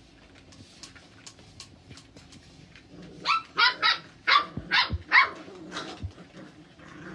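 Cocker Spaniel puppies yipping: after faint clicks and scuffles, about three seconds in comes a quick run of about seven sharp, high puppy barks, several sliding up in pitch.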